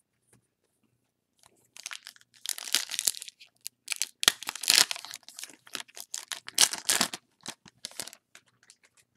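Foil wrapper of a Topps Gallery trading-card pack being torn open and crinkled by hand. A run of irregular tearing and crinkling starts after a second or so of quiet.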